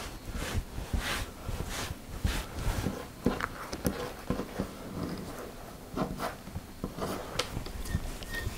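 Hands pressing and gathering shortcrust pastry dough on a floured silicone mat: irregular soft pats, knocks and rustles.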